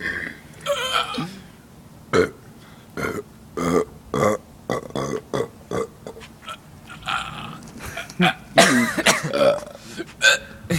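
A string of deliberate human belches, about a dozen short separate burps with gaps between them. A longer pitched belch comes about eight and a half seconds in.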